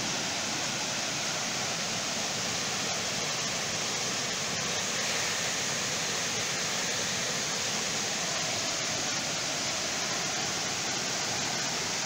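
Water of a shallow stream rushing steadily down a small cascade over rocks.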